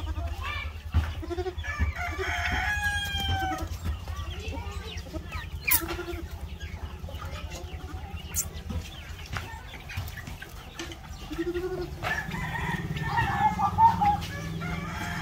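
Backyard flock of chickens clucking, with a rooster crowing.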